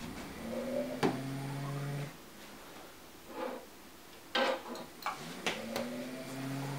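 Benchtop bottle-filling machine's pump motor spinning up with a rising whine, then running steadily for about a second and a half before cutting off sharply as it dispenses a fill of silicone oil, twice. Sharp clinks of small glass bottles being set on the steel table come between the fills.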